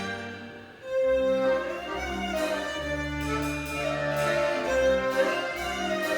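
Live band music with a fiddle lead over a walking bass line. The music thins out briefly right at the start, then comes back in with a strong held note about a second in.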